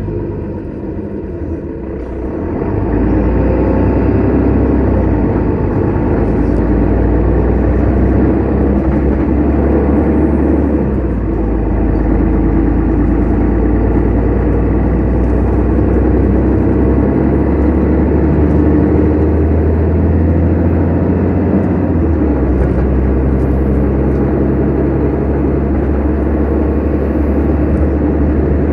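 Mercedes-Benz Citaro city bus heard from inside the cabin: its engine picks up as the bus pulls away about two to three seconds in, then runs steadily under way with road noise.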